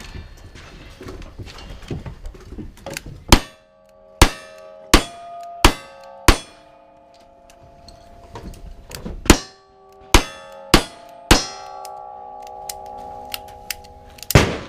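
Gunshots at steel targets in a cowboy action shooting stage, each shot followed by the ring of the struck steel plate. There is a string of five shots, a pause of about three seconds, a string of four, and then one more near the end.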